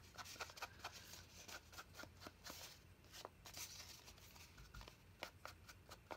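Faint soft taps and light brushing of a round foam ink applicator dabbed and swiped along the paper edges of an envelope while inking it: many small irregular taps, with a couple of brief swishes.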